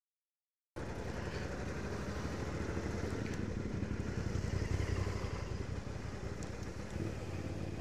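Suzuki Intruder VL1500LC's V-twin engine running as the motorcycle rolls slowly along. The engine note swells a little midway and then eases. The sound cuts in abruptly after a brief silence at the start.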